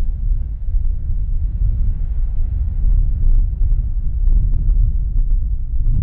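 Airbus A320neo's geared turbofan engines at takeoff power as the airliner climbs away, heard as a steady low rumble. Heavy wind buffets the microphone throughout.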